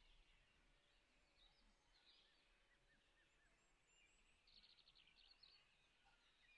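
Near silence: faint background noise with faint, scattered bird chirps.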